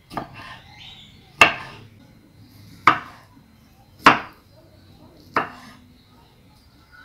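Kitchen knife chopping strawberries on a wooden cutting board: five sharp knocks of the blade on the board, evenly spaced a little over a second apart.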